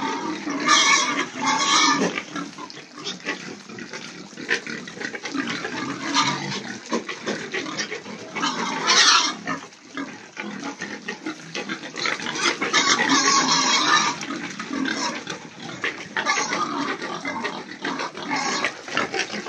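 Several pigs grunting and squealing, with louder cries about a second in, around nine seconds, and for a couple of seconds from about twelve seconds.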